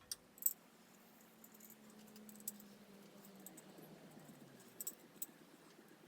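Small metal fence parts clicking and clinking lightly as they are handled and fitted, with the sharpest click about half a second in and a few more near the end.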